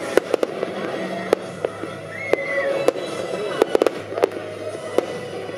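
Aerial fireworks shells bursting in a rapid, irregular run of sharp bangs and cracks, with music and voices underneath.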